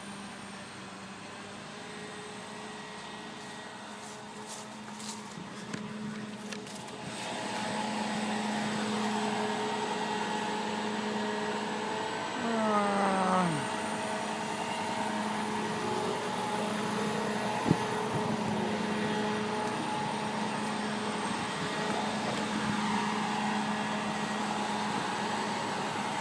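Tree-service crane's engine running steadily, growing louder about seven seconds in. About twelve seconds in, a whine falls in pitch, and near eighteen seconds there is a single sharp knock.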